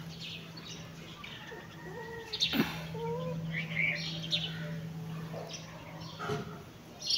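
Small birds chirping in short, scattered calls over a steady low hum, with a sharp tap about two and a half seconds in.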